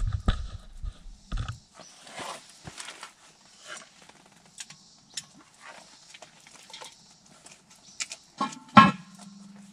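Low rustling handling noise and faint scattered clicks, then near the end a few loud ringing metal clanks as the lid of a cast iron Dutch oven is lifted.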